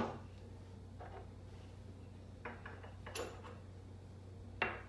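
Plastic food-chopper bowl set down on a countertop with a sharp knock, followed by a few lighter clicks and knocks of kitchenware being handled. A faint steady hum runs underneath.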